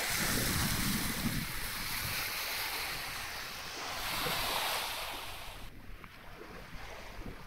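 Water rushing and splashing along the hull of a sailing yacht under sail at about 6 knots, with wind on the microphone. The rush drops abruptly about six seconds in.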